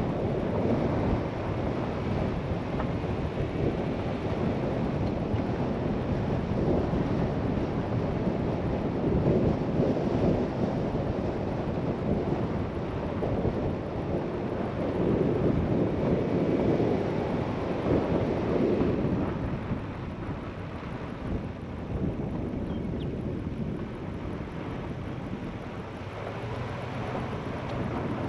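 A vehicle driving on a gravel dirt road: a steady rumble of tyres on gravel, mixed with wind noise. It gets quieter about twenty seconds in as the vehicle slows.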